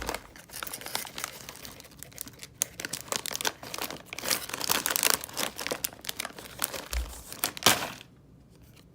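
Crinkly plastic packaging being handled and torn open, a dense crackling rustle that stops about a second before the end.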